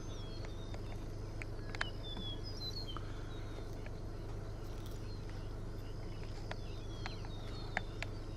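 Outdoor ambience: a steady low hum under small birds chirping in short high notes, with a few sharp clicks.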